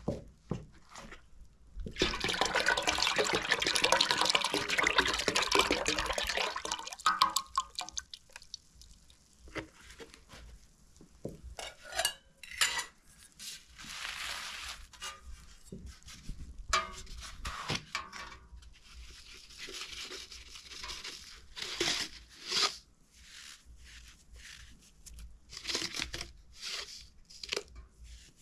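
Kitchen sounds of bowls and utensils being handled: a few seconds of steady pouring about two seconds in, then scattered clinks, knocks and scrapes as the ingredients are worked.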